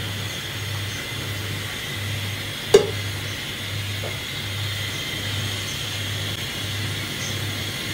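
Oil heating in a metal cooking pot on the stove: a steady hiss with a low hum that pulses about twice a second, not yet sizzling. One sharp click sounds a little under three seconds in.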